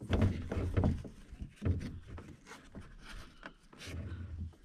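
Irregular knocks, scuffs and rustling from a Hornbeck canoe carried overhead, with its load of gear shifting, while the carrier walks over dry leaves.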